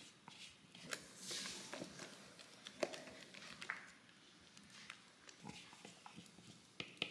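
Faint kitchen handling sounds: a silicone spatula scraping almond flour out of a plastic mixing bowl into a bowl of batter and folding it in, with soft scrapes, the hiss of pouring flour and light taps against the bowls.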